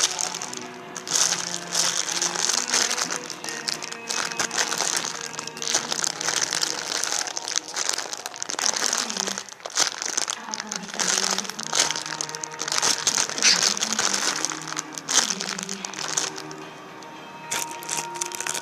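Plastic packaging of a squishy toy crinkling as it is handled, dying down near the end, with music playing in the background.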